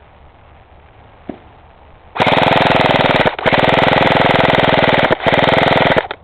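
Airsoft rifle firing full-auto close by: a single click, then a long rapid stream of shots in three bursts with two brief pauses between them.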